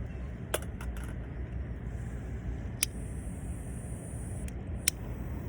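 Campfire wood crackling, with a handful of sharp pops over a steady low rumble.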